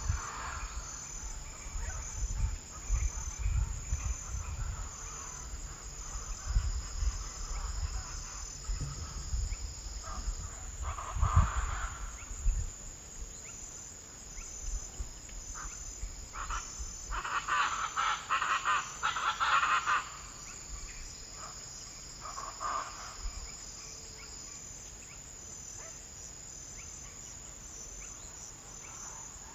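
Wild outdoor ambience: insects keep up a steady, high-pitched pulsing chirr, while birds call in short bouts around the middle, with low rumbles through the first half.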